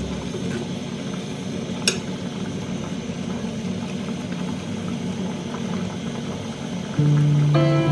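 A vehicle engine running steadily with a low rumble, and a single sharp click about two seconds in.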